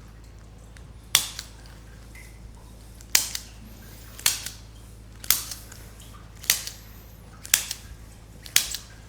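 Seven sharp clacks, roughly one a second, each followed by a smaller click, from a chiropractic adjustment of the pelvis of a patient lying face down, to correct a left leg that measures short.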